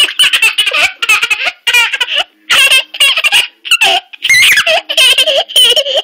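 A two-year-old girl laughing hard in repeated bursts of giggles with short breaks between them: the giddy, uncontrolled laughter of an overtired toddler.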